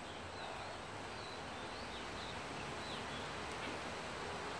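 Steady outdoor background hiss with a few faint, short, high bird chirps in the first few seconds.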